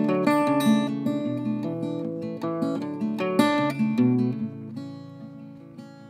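Solo acoustic guitar playing an instrumental passage of picked and strummed chords, easing off and letting a chord ring out quietly near the end.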